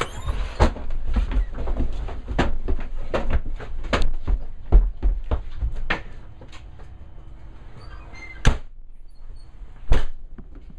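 Thumps and knocks of several people climbing out of the back of an ambulance. Near the end, the ambulance's rear doors are slammed shut twice, about a second and a half apart.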